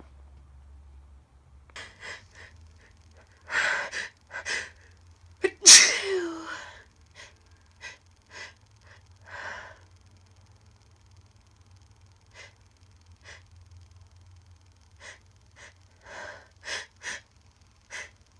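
A woman gasping in short catches of breath, then sneezing once, loudly and with her voice, about six seconds in, followed by more short gasping breaths.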